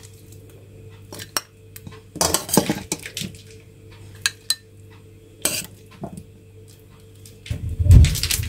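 Spoon clinking and scraping against dishes in irregular bursts, busiest about two to three seconds in, while food is served into bowls. Near the end comes a dull, heavy thump, the loudest sound.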